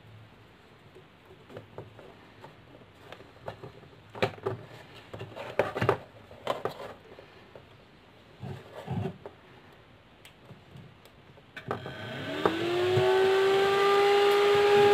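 Small clicks and rustles of wires and connectors being handled, then about twelve seconds in a 120 mm 12-volt high-airflow server cooling fan switches on: its motor spins up with a rising whine that levels off into a steady hum over the rush of air.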